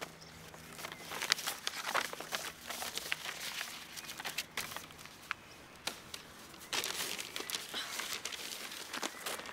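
Stiff paper rustling and crinkling in irregular bursts as a large sheet is handled and folded, busiest about a second in and again near the end.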